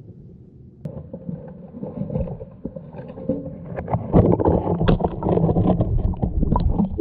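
Underwater handling noise on a GoPro: a low muffled hum, then about a second in water sloshing against the camera with many sharp knocks as it is picked up and moved through shallow water, getting much louder about four seconds in.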